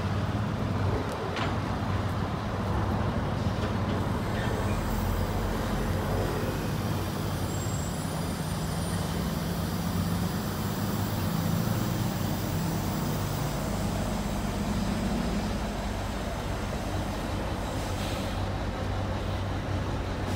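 Semi-truck's diesel engine running at low revs, a steady low drone, as the tractor-trailer reverses into a loading dock.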